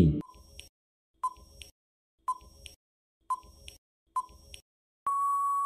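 Quiz countdown timer sound effect: a tick-tock about once a second, five times, then a steady electronic beep held for about a second near the end, marking time up.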